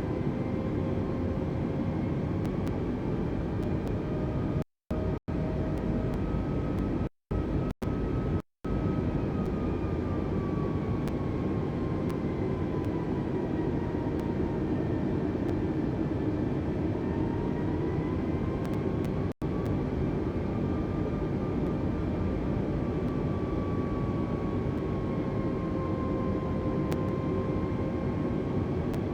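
Airliner cabin noise on a windy approach to landing: a steady roar with engine tones whose pitch slowly rises and falls. The sound drops out briefly a few times, mostly around five to nine seconds in.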